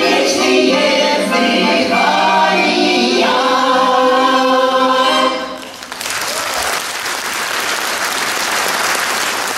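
Choir singing with changing notes; the song ends a little past halfway, and audience applause follows.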